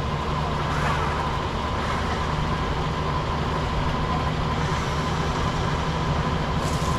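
Off-road vehicle engine running steadily at idle, with a steady high whine held on top.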